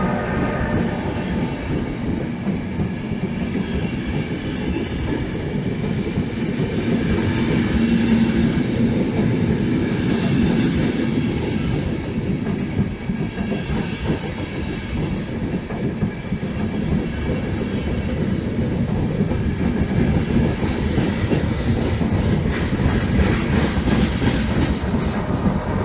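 Intercity Notte night train's couchette and sleeper coaches rolling past at speed: a steady rumble of wheels on rail, with extra high hiss building near the end.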